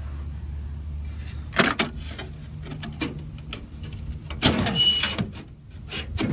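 Wind buffeting the microphone as a steady low rumble, with scattered clicks and knocks as old body trim is pulled and pried off a 1977 Camaro, and a louder rattle about four and a half seconds in.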